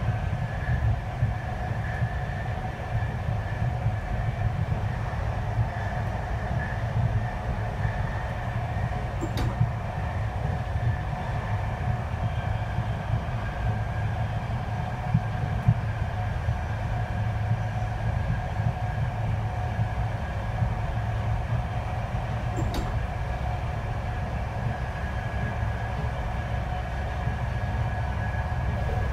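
Inside a passenger coach of an express train running at speed: a steady rumble of wheels on rail, with a faint steady hum of two pitches. Two short clicks stand out, about thirteen seconds apart.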